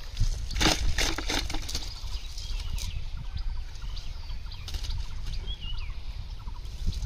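Live fish flopping and slapping against a cast net and the grass while the net is shaken out, with a burst of slaps in the first second and a half and scattered softer flaps after. Small birds chirp faintly in the background.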